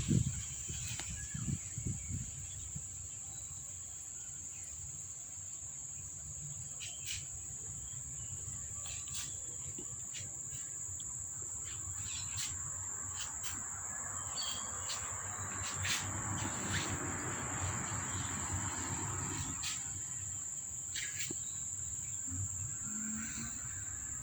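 A steady high-pitched hum, with scattered sharp little clicks and soft rustling over it.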